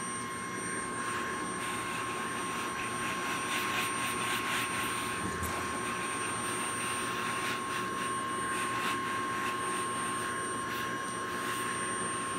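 Vacuum cleaner running steadily with a constant whine, its nozzle brushing over a cat's fur to groom it.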